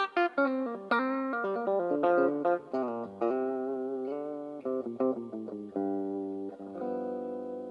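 Tokai Super Edition SD-65s electric guitar played through an amp: a phrase of picked notes and chords, ending on a held chord that rings and slowly fades.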